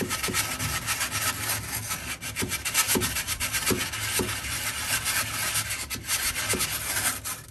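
Hand sanding block with sandpaper scrubbing back and forth against a copper pipe in quick, steady strokes, roughing up the surface around a pinhole leak so an epoxy putty patch will stick.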